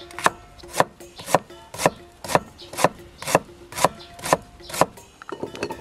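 A kitchen knife chopping vegetables on a cutting board in steady strokes, about two a second. The chopping stops near the end, giving way to a few lighter clicks.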